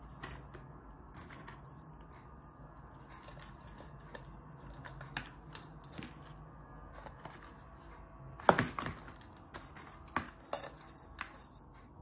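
Chunks of dry, coarse forest bark being handled and pushed into a clear plastic orchid pot: scattered light crackles and clicks, with a louder clatter about eight and a half seconds in.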